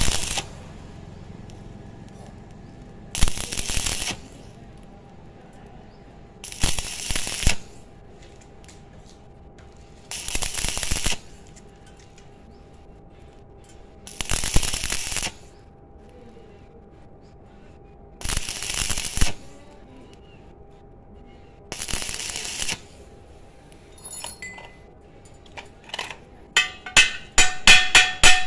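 Stick-welding arc crackling and hissing in short bursts of about a second, repeated every three to four seconds as the electrode is struck and pulled away again and again to build up weld across a large gap in thin square tubing. Near the end a chipping hammer knocks slag off the fresh weld in fast blows, about five a second.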